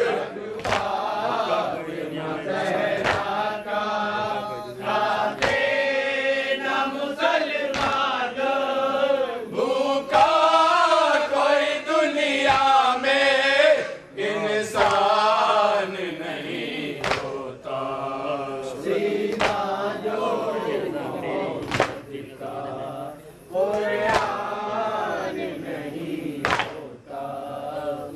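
A group of men's voices chanting a nauha, a Shia mourning lament, in unison through a microphone. Sharp beats scattered through it are hands striking chests in matam.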